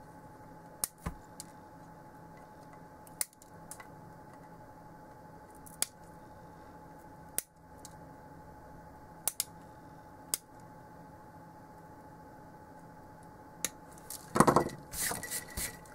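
Small side cutters snipping excess component leads off a circuit board: a sharp click every second or two, about ten in all, over a steady hum from a fume extractor fan. Near the end there is a louder rustle of the board and tools being handled.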